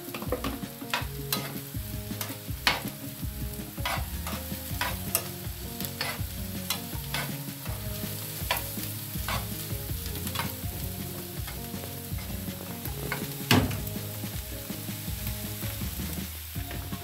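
Chopped mushrooms and onion sizzling in a frying pan as they are tipped in and stirred with a spoon. The spoon clicks against the pan many times, with one louder knock about three-quarters of the way through.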